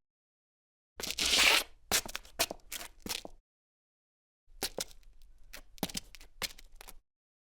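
Footsteps on gritty cement, in two short takes with dead silence between them. The first starts with a gritty scuff and is followed by a few crunchy steps; the second is a quick run of sharp, crunching steps on grit.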